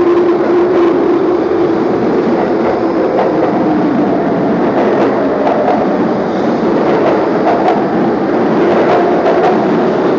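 Kintetsu 21000 series Urban Liner plus express train pulling out and accelerating past along the platform. Its running tone climbs in pitch as it gathers speed, with sharp wheel clacks over the rail joints in the second half.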